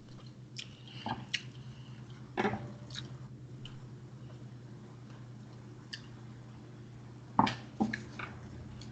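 Scattered small clicks and knocks, a few close together near the start and a sharper pair about seven and a half seconds in, over a steady low hum.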